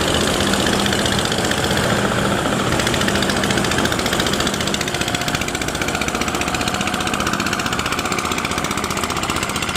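Small gasoline engine of a vỏ lãi longtail boat running steadily with a fast, even beat, a little quieter in the second half.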